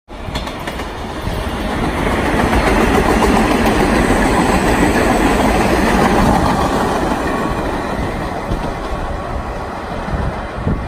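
Vintage New York City subway train of 1963 St. Louis R33 World's Fair and 1966 R38 cars running through the station at speed on the express track without stopping, its wheels running over the rails. It grows louder as it comes close, is loudest between about two and six seconds in, then fades as it moves away.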